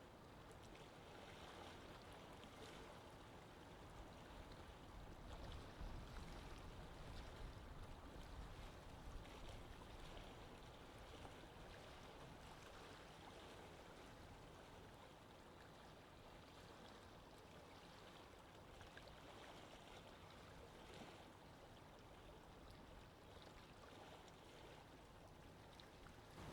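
Faint, steady wash of sea water with a low rumble beneath it.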